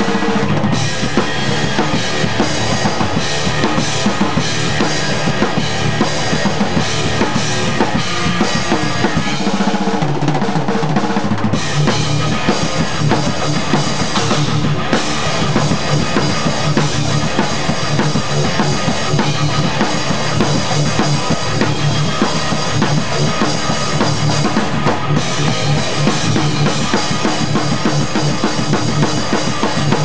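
Rock band playing at full volume: a drum kit with Sabian cymbals pounds out kick, snare and cymbal hits over guitars and bass. About ten seconds in the bass drops out for a moment, then the full band comes back in.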